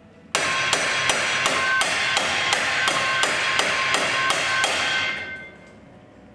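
A hammer striking the puffed-up weld seam of a rolled metal pulsejet pipe segment held over a wooden bar, about a dozen even blows at roughly three a second, the thin metal ringing after each. The blows flatten the seam to bring the segment, which went oval when welded, back round. The hammering stops about five seconds in.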